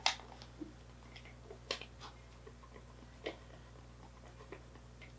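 A few faint, scattered clicks and ticks of a small screwdriver working a screw into the plastic housing of a Teddy Ruxpin animatronic bear. The sharpest click comes right at the start, with others about a second and a half and three seconds in.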